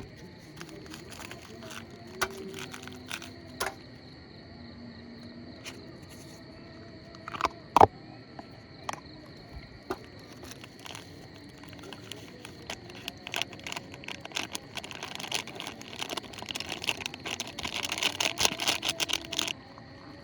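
Insects, crickets by the sound, chirring in a steady high drone, with scattered clicks and knocks over it. One loud knock comes about eight seconds in, and a dense run of clicking and rustling fills the last third, stopping shortly before the end.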